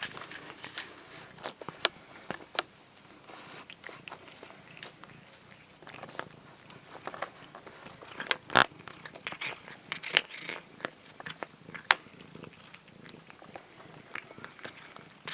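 A cat gnawing and biting on a chew stick: irregular crunching clicks, with a few sharper cracks in the second half.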